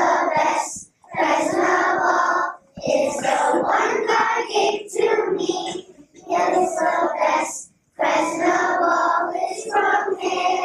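Young children singing a song, in phrases with short breaks between them.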